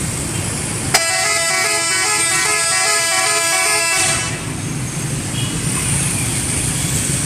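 A bus's multi-tone musical 'telolet' horn plays a quick stepping tune for about three seconds, starting sharply a second in and cutting off abruptly, over a steady low rumble.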